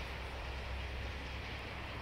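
Low rumble of a diesel train that has just passed, slowly fading away.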